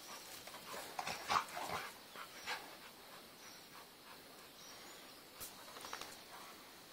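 Dogs play-fighting, a Great Dane among them: short dog vocalizations and scuffling, most of them bunched about one to two seconds in, then quieter.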